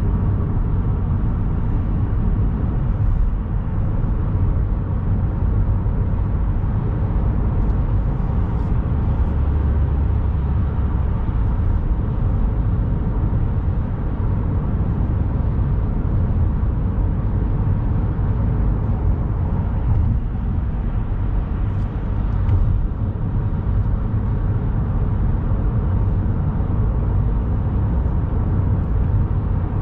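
Steady low rumble of tyre and engine noise inside a car cruising on an expressway.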